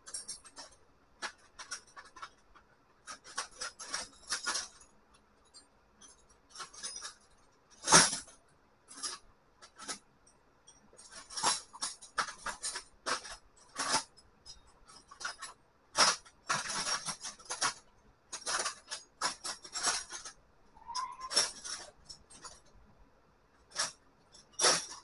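Metal hand tools clinking and clanking irregularly, as a wrench and sockets are handled and picked up, with one louder knock about eight seconds in.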